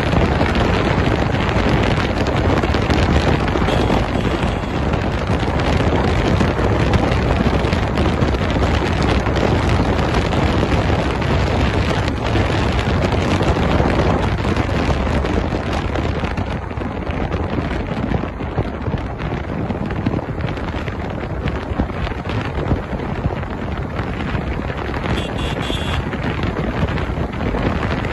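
Heavy wind buffeting the microphone of a sport motorcycle moving at speed, with road and engine noise blended underneath. It eases off a little about two-thirds of the way through.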